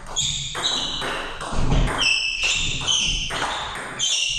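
Table tennis rally: the ball is struck back and forth, with sharp pings off the bats and table, roughly two hits a second.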